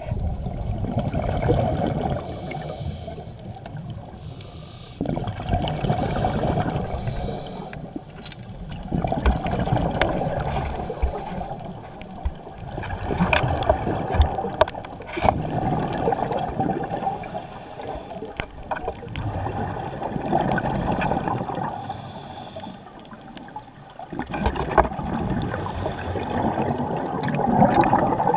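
Scuba regulator breathing underwater: exhaled bubbles come in bursts that swell and fade every few seconds, with quieter gaps between breaths.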